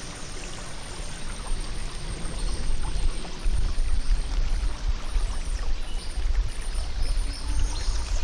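Shallow creek water trickling and running over stones, a steady hiss, with a low rumble underneath that grows stronger about halfway through.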